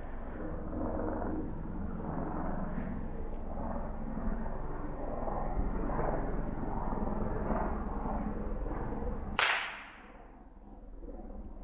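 A single rifle shot, a sharp crack about nine seconds in with a short ringing tail, after several seconds of low steady background noise.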